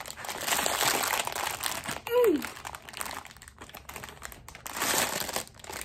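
Clear plastic bag of LEGO pieces crinkling in irregular bursts as a child pulls and works it open with his hands. About two seconds in there is a brief falling voice sound from the child.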